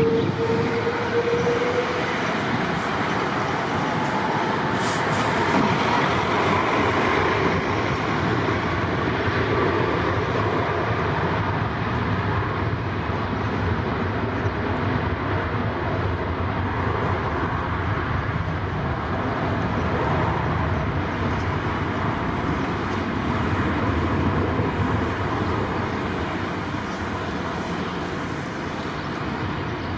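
Airbus A330-300 airliner's Rolls-Royce Trent 700 jet engines at takeoff thrust: a loud, steady roar with a rising whine in the first few seconds, easing slightly near the end.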